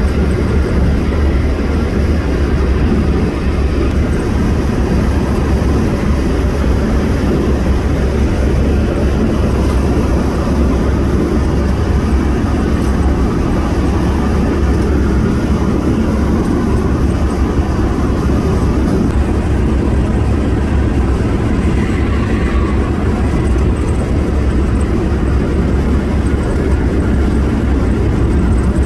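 Steady road and engine noise of a moving car, heard from inside: a constant low rumble with no breaks.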